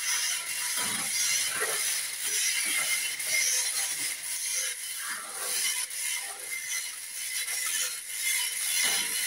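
Manual chain hoist being hauled to lift a heavy unit: the chain rattles and the ratchet mechanism clicks irregularly.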